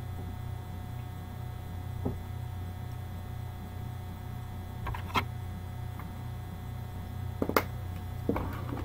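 Steady low electrical hum with a few short, sharp clicks and taps from handling a can of dipping tobacco while a pinch goes into the lower lip.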